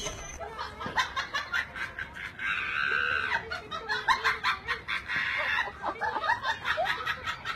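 A woman laughing in many short, quick bursts.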